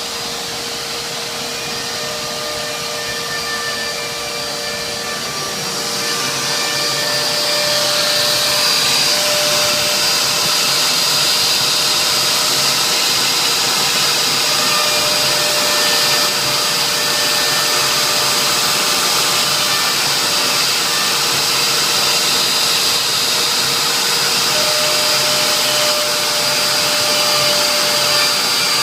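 CNC router spindle running steadily as it engraves a signature board, a continuous motor noise with a high whine. It grows louder about six seconds in and then holds steady.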